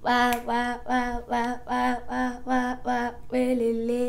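A woman's voice singing or chanting about ten short syllables on one note in quick succession, then holding one longer note near the end.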